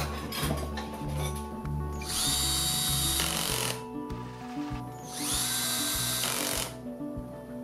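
Cordless drill driving screws into a Stihl 038 Magnum 2 chainsaw's housing. It runs twice, about a second and a half each time, each run starting with a rising whine as the motor spins up.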